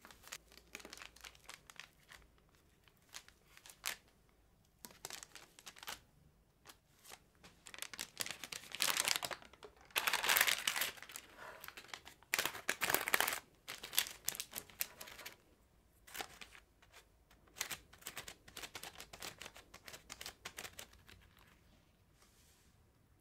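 Plastic cling film and baking parchment crinkling and rustling in irregular bursts as they are handled around a sheet of rolled cookie dough. The loudest rustles come in the middle, as the parchment is lifted and tucked into a metal baking tray.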